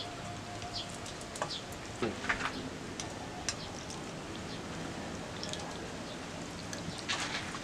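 Metal spoon clinking and scraping in a wok of vegetable soup and against a plate while serving it onto rice: a few scattered clinks, a small cluster near the end, over a steady background hiss.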